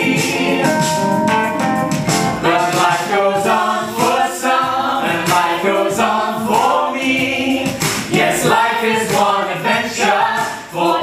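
Small mixed group of men and a woman singing together in harmony, apparently unaccompanied.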